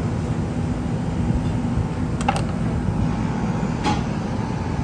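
Steady low rumble of kitchen machinery, with two light clicks, one a little over two seconds in and one near four seconds.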